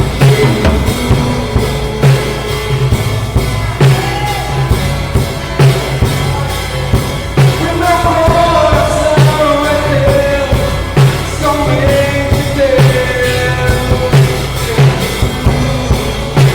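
Live worship song played on a drum kit with acoustic guitar and a singer, picked up by a phone microphone. Kick and snare keep a steady beat under cymbal wash, and the singing carries held notes from about eight seconds in.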